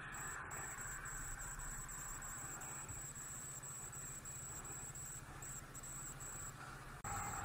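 Motorcycle engine running at low road speed, muffled as heard through the camera housing, over a steady hiss, with a faint steady high-pitched whine on top.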